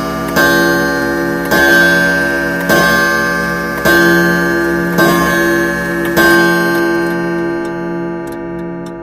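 Ticking-clock timer sound effect: a clock-like strike about every second over a ringing tone, with the last strike about six seconds in and then fading. It plays as thinking time while a quiz question waits for its answer.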